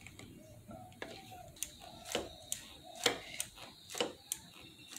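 Front brake lever on a motorcycle's Nissin master cylinder being pumped to bleed the brakes: a steady run of sharp clicks, about one pair a second, as the lever is squeezed and let go.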